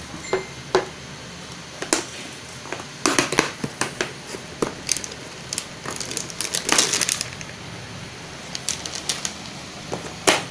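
Plastic food containers and a tub lid handled on a table: scattered clicks and knocks, a quick run of clatter about three seconds in, a longer spell of clattering around seven seconds in, and a sharp knock near the end.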